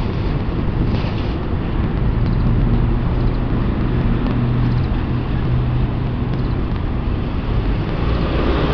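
Low rumble of wind buffeting a handheld camera's microphone outdoors, with the steady hum of a passing road vehicle through the middle.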